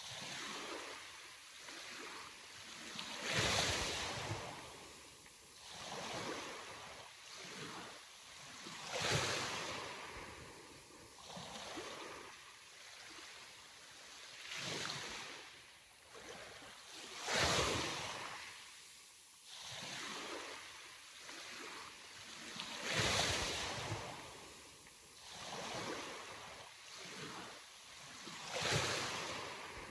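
Sea waves washing onto a shore. A rush of surf swells up and dies away about every five to six seconds, with a softer wash between the breakers.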